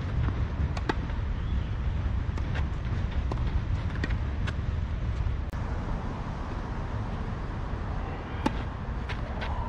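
Tennis balls being hit on a clay court: sharp pops of racket strings striking the ball and of ball bounces, every second or so, with the loudest pop near the end as a serve is struck. A steady low rumble runs underneath.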